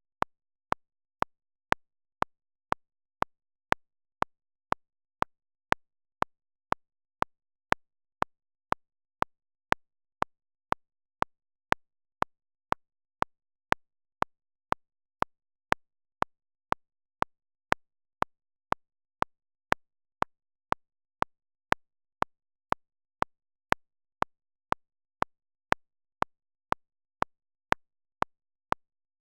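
Short sharp clicks repeating evenly about twice a second, with silence between them.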